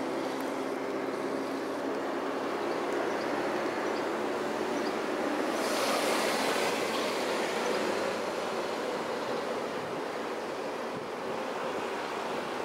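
A steady rush of wind on the microphone, swelling to a peak about six seconds in as a motorcycle passes beneath, then easing off as it rides away.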